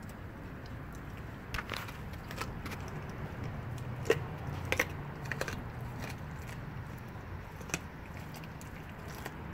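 Blue Bay Shepherd crunching and gnawing a frozen raw tilapia: irregular sharp cracks as its teeth break the frozen fish, the loudest about four and five seconds in, over a low steady hum.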